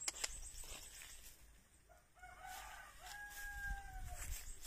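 A rooster crowing once, faint, about two seconds in: a short opening phrase, then a long held note that drops away at the end.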